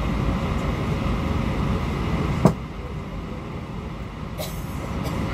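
Steady low rumble of engine noise at an airport. A single sharp click about halfway through, after which the rumble is somewhat quieter.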